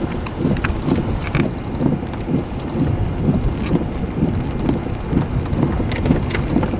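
Gusty wind buffeting the microphone: a loud, uneven low rumble, with a few sharp clicks.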